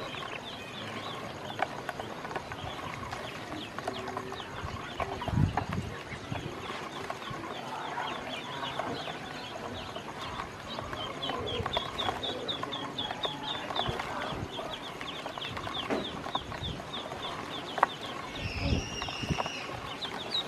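A brood of ducklings peeping constantly in many short, falling peeps, with light taps of their bills pecking feed from a plastic basin. Near the end one longer, steadier call stands out.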